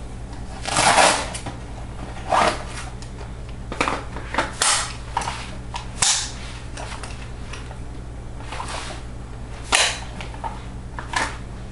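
Handling noises from an AK-pattern rifle on its sling and a chest harness rig: about eight irregular clacks and rustles, a few seconds apart, over a steady low electrical hum.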